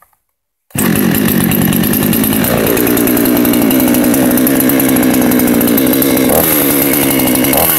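Huter BS-45 two-stroke chainsaw engine, freshly started after standing unused for half a year, running. It cuts in abruptly under a second in, drops in pitch about two and a half seconds in and settles into a steady run, with two short blips near the end.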